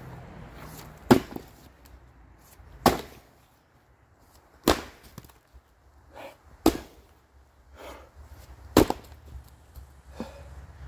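Splitting maul striking oak rounds: five hard chops about two seconds apart, the first the loudest, with fainter knocks of split wood between them.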